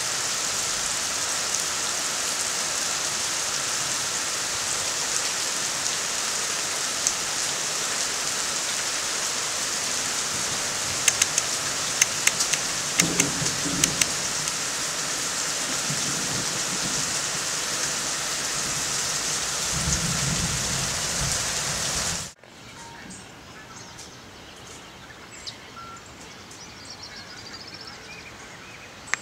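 Steady heavy rain falling, with a few sharp drip ticks and two brief low rumbles. About three-quarters of the way through it cuts off abruptly to a much quieter rural background with a few faint bird chirps.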